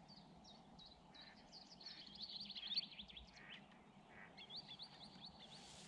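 Small songbirds singing faintly in quick series of high chirping notes, a fast run about two seconds in and another string of repeated notes about four and a half seconds in.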